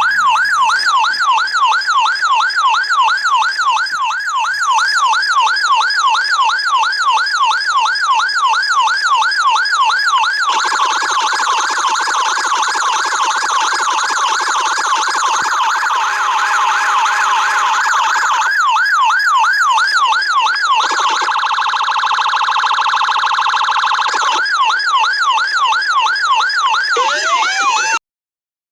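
Electronic police car siren in yelp mode, a fast up-and-down wail repeating about three times a second. About ten seconds in the sound thickens, and around twenty-one seconds it switches to a rapid warble for a few seconds before returning to the yelp. Near the end a new rising wail begins and the sound cuts off abruptly.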